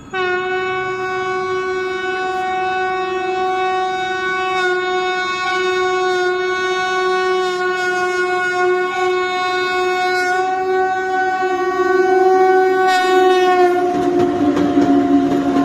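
VL11 electric locomotive's air horn sounding one long steady note for about fourteen seconds. Near the end its pitch dips slightly, a second lower note joins, and the rushing, rumbling noise of the passing train swells.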